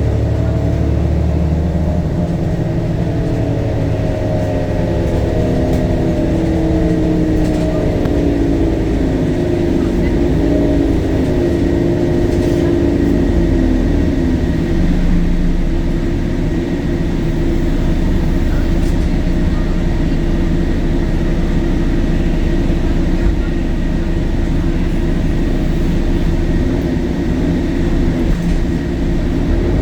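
Temsa Avenue LF city bus's DAF Euro 5 diesel engine running through its ZF automatic gearbox. The engine pitch falls steadily over the first half as the revs drop, holds steady, and starts rising again near the end.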